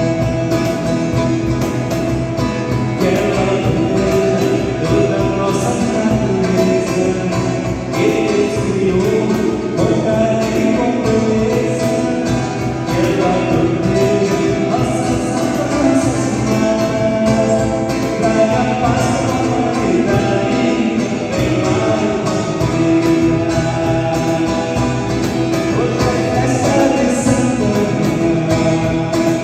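A hymn sung by voices over instrumental band accompaniment with a steady beat.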